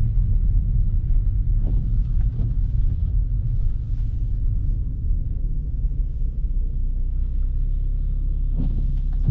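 Steady low rumble of a BMW F30 335i's turbocharged straight-six and its tyres driving through snow and slush, heard from inside the cabin.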